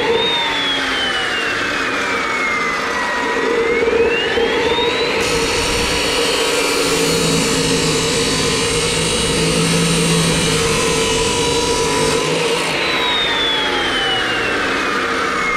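Abrasive cut-off saw (Yato YT-82181) with a DeWalt cutting disc: the motor whines up to speed, sags in pitch and revs back up. The disc then grinds through a rectangular steel tube with a hissing rasp for about seven seconds, and near the end the motor's whine falls away as the disc spins down.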